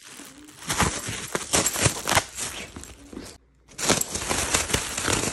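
A thin plastic bag crinkling and crackling in quick, irregular handfuls as it is handled near a Wheaten terrier. The sound cuts out briefly about three and a half seconds in.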